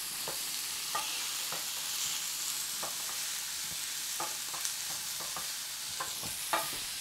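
Shrimp, onion and chilli powder sizzling in oil in a nonstick frying pan, with a spatula stirring and scraping through them in short strokes about once a second. The masala is being sautéed until its raw smell cooks off.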